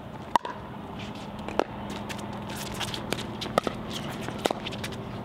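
Pickleball rally: sharp pops of paddles striking the plastic ball, a handful of hits a second or so apart with the loudest about half a second in, along with shoes moving on the hard court. A steady low hum runs underneath.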